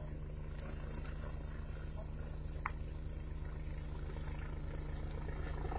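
Distant helicopter in flight: a steady low rotor drone with a fast, even pulsing beat.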